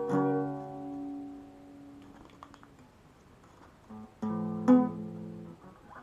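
Strummed acoustic guitar chords with no singing: a chord rings out and fades away over about two and a half seconds, then after a quiet gap a new chord is strummed about four seconds in, with a sharper strum half a second later.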